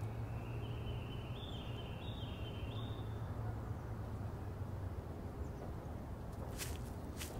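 Quiet outdoor background with a steady low hum. A faint run of high tones steps upward in pitch over the first few seconds, and two light clicks come near the end.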